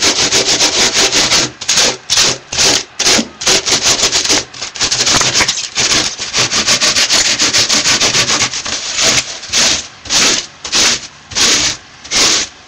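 A hand rasp scraping a Styrofoam armature in quick back-and-forth strokes, several a second, slowing to slower, separate strokes in the last few seconds.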